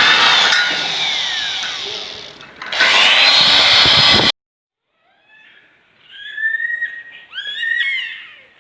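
Electric power tool's motor running at a high whine, dipping and winding down about two seconds in, then speeding up again before cutting off abruptly. After a pause, small birds chirp briefly.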